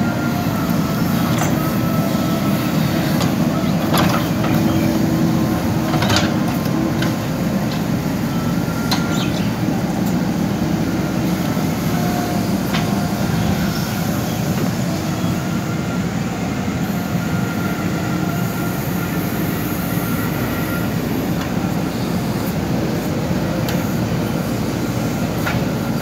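JCB 3DX backhoe loader's diesel engine running steadily under load while the backhoe digs a drain trench, with a few sharp knocks from the bucket and arm.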